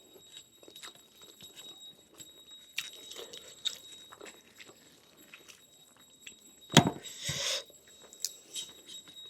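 Close-miked eating: biting and chewing lamb meat off the bone, with many small wet clicks of the mouth. About seven seconds in comes one louder, sudden noisy sound lasting under a second.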